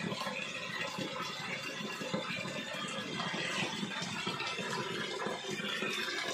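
Water splashing and trickling steadily over a wild boar carcass as it is washed down.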